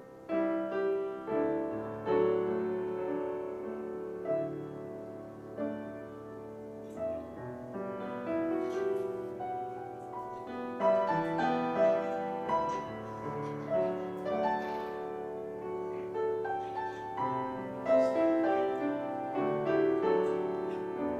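Piano music: a melody over held chords.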